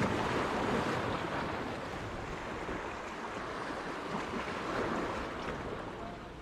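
Sea waves washing and surging, with wind buffeting the microphone.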